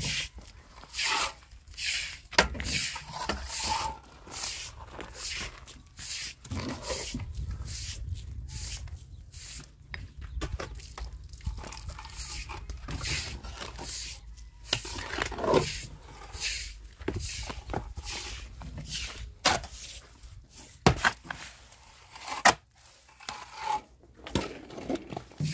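Shovel and hand tools scraping through wet cement mortar in a metal wheelbarrow, with irregular scrapes and a few sharp knocks, the loudest two close together near the end.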